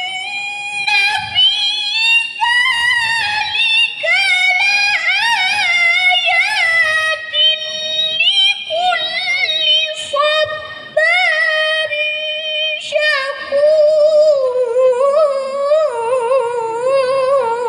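A woman's high-pitched Quran recitation (tilawah), sung in long ornamented melodic phrases with brief breaths between them. The last phrase falls in pitch and closes near the end.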